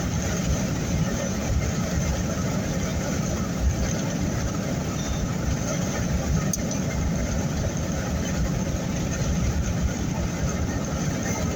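Steady rumble of a car driving, engine and road noise heard from inside the cabin.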